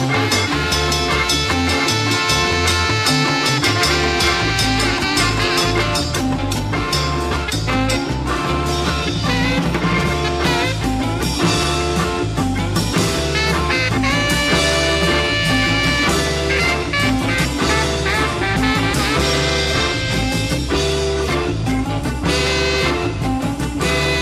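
Upbeat band music with drums, a moving bass line and sustained instrument notes, playing steadily throughout.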